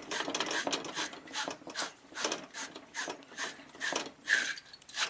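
A battery-terminal-cleaner wire brush scrubbing back and forth inside a copper pipe, making short rasping strokes about two to three times a second.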